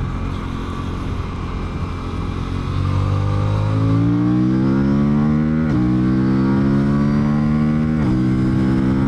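Aprilia Tuono 457's parallel-twin engine accelerating hard up through the gears. The revs hold steady at first, then climb from about three seconds in, with two upshifts where the pitch drops sharply, near six and eight seconds in.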